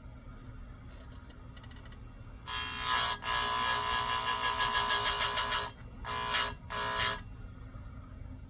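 Electric chainsaw chain grinder whining as its wheel grinds a cutter tooth, one pass of about three seconds that pulses rapidly toward its end, then two short touches of the wheel about a second apart.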